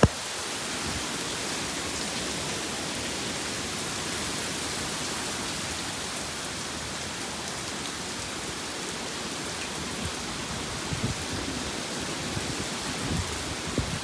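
Heavy thunderstorm rain pouring down as a steady hiss, beginning abruptly with a sharp click, with a few low rumbling swells near the end.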